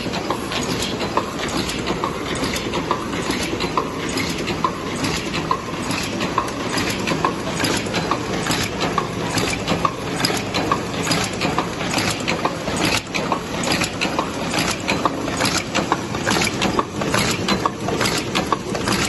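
Koresan KRC70 paper cup making machine running: a steady mechanical clatter with regular clicks about two a second as it cycles.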